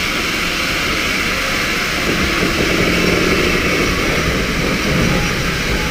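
A double-headed steam train of GWR 4-6-0s, 5029 Nunney Castle and 4936 Kinlet Hall, running, heard from beside a carriage. Exhaust, wheel and rail noise and the rush of air blend into a steady din.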